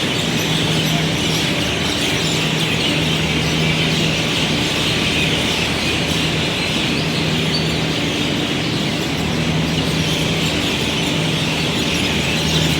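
A large flock of small birds chirping continuously, a dense wall of overlapping chirps, over a low machine hum that swells and fades every couple of seconds.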